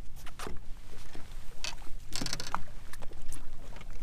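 Wind on the microphone and small waves lapping against a bass boat's hull, a steady low rumble broken by a few light knocks and splashes.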